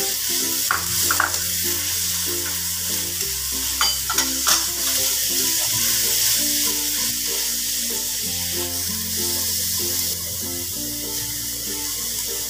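Minced chicken frying in oil with sautéed garlic in a wok, sizzling steadily as a spatula stirs and scrapes it, with a few sharper scrapes in the first five seconds. Background music with held bass notes plays throughout.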